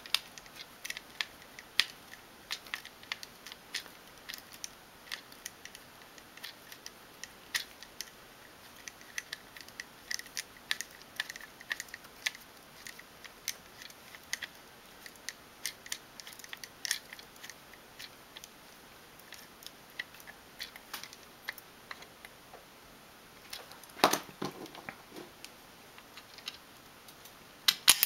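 Irregular small clicks and ticks of small screws and plastic parts being handled and fitted into a 3D-printer printhead's plastic housing, with a louder cluster of knocks about 24 seconds in and again near the end.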